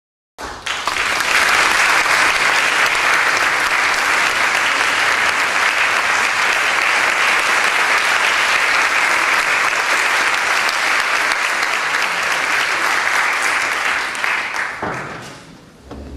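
Concert-hall audience applauding steadily, then dying away near the end.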